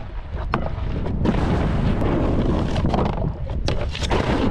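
Wind buffeting the microphone while a snowboard slides and scrapes over snow, with a few short sharp clicks scattered through it.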